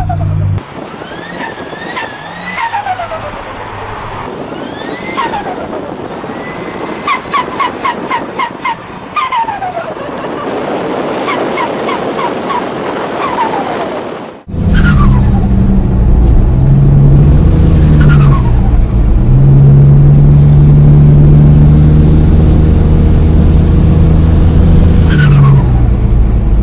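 Turbocharged car engines revving, each lift off the throttle followed by a falling turbo whistle. About seven seconds in comes a rapid fluttering compressor surge, the "sututu" turbo flutter. About halfway through it cuts to a much louder engine held at high revs, with more falling whistles over it.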